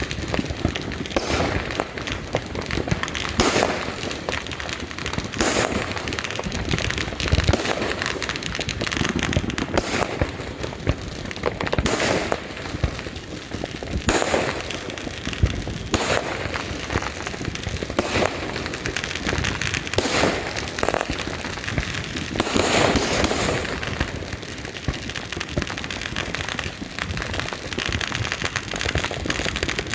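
New Year's fireworks and firecrackers going off non-stop: a dense crackle with sharp bangs every second or two.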